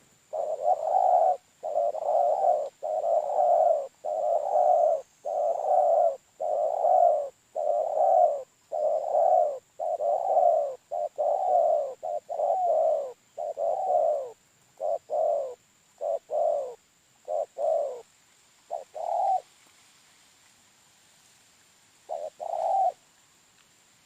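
Dove, the balem or deruk, cooing: a long run of repeated coos, each just under a second, that grow shorter and more clipped and break off about 19 seconds in, followed by one short pair of coos near the end.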